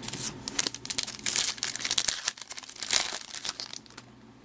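Foil wrapper of a baseball card pack crinkling as it is handled, in irregular bursts that die down after about three seconds.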